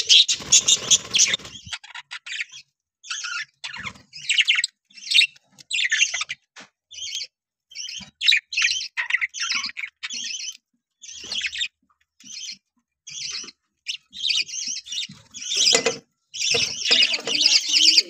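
Budgerigars chirping and chattering in quick short calls, several birds at once, with a brief lull around the middle and busier chatter near the end.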